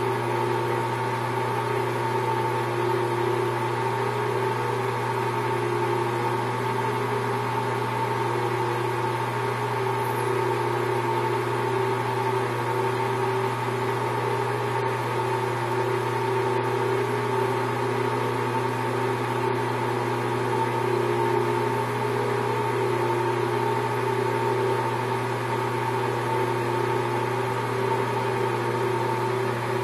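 Small metal lathe running steadily, a constant motor hum with several held tones, while it spins a brass rifle case whose neck is being shaved by a hand-held neck turner.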